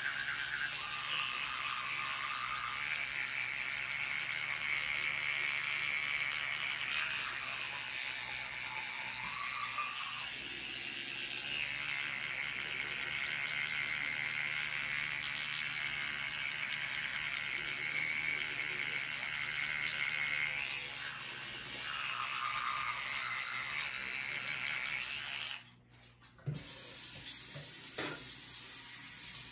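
Battery-powered electric toothbrush running during brushing, its motor whine shifting and dipping in pitch as the head moves over the teeth. The motor cuts out near the end, followed by two short knocks.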